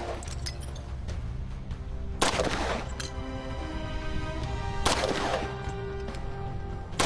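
QSZ-92 pistol firing 5.8x21mm rounds: one shot about two seconds in, a second about two and a half seconds later, and a third right at the end, each with a short ringing tail. Background music with steady held tones plays underneath.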